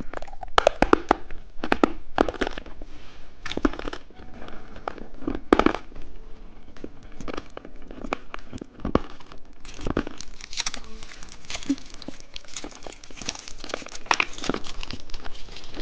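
Plastic candy wrapper crinkling and tearing as a lollipop is unwrapped by hand, with many irregular sharp crackles.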